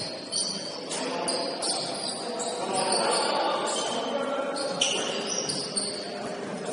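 Basketball game on an indoor court: the ball bouncing, sneakers squeaking in short high-pitched squeals many times, and players' voices in the background.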